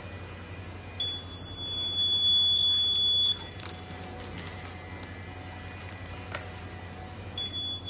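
Food metal detector's alarm buzzer giving a steady high-pitched beep for about two seconds, starting about a second in, and sounding again near the end: the signal that metal has been detected in the packet passing through the detector head.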